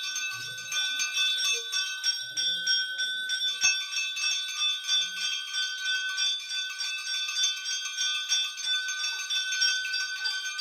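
Temple puja bell rung rapidly and continuously during aarti, a steady ringing.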